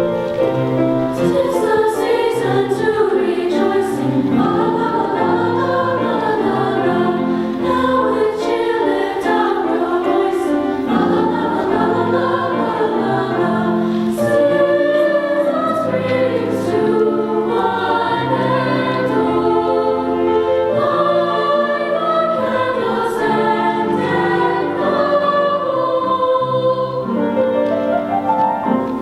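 A high school women's chorus singing.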